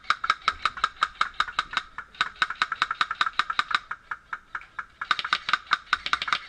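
Airsoft gun firing a rapid string of sharp snapping shots, about seven a second, that eases briefly about four seconds in and then picks up again.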